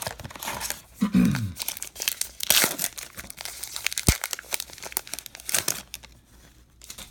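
Wrapper of a 2019 Topps Allen & Ginter trading-card pack crinkling and tearing as the pack is pulled from the box and ripped open, with a brief low voice sound about a second in and a single sharp click midway; the handling quietens near the end.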